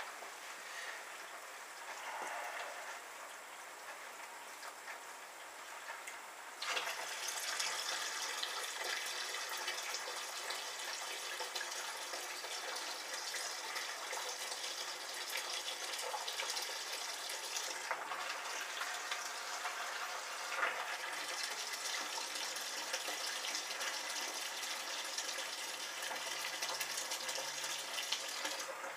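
Wort running from a brew kettle's ball valve through a hose into a plastic fermenter bucket: a steady gush of filling liquid that gets louder about seven seconds in.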